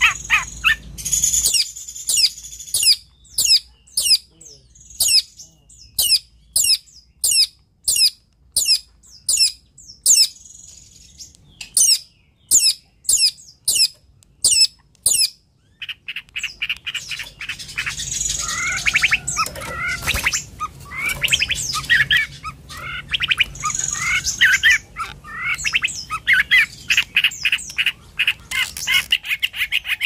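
Long-tailed shrike singing: first a long series of sharp, quickly falling notes repeated about one and a half times a second, then, about halfway through, a burst of fast, varied chattering with rapid trills that keeps going.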